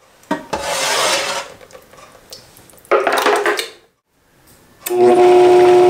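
A metal ladle clinks and scrapes as it scoops roasted tomato sauce from a roaster and tips it into a blender jar, in a couple of short stretches. About five seconds in, a Vitamix blender motor starts and runs loud and steady at a constant pitch, pulverizing the tomatoes into sauce.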